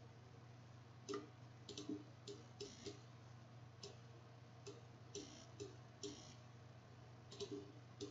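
Faint computer mouse button clicks, about a dozen at uneven spacing, some in quick pairs, over a steady low hum.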